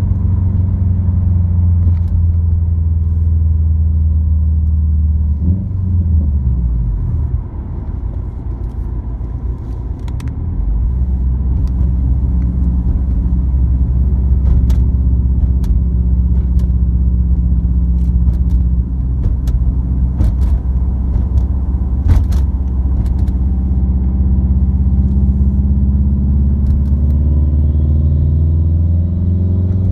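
Subaru WRX's turbocharged flat-four with an Invidia N1 dual cat-back exhaust, heard from inside the cabin while cruising: a steady low exhaust drone. About five seconds in, the drone falls in pitch and softens for a few seconds, then comes back, and it rises in pitch near the end. Scattered short clicks and rattles sound over it.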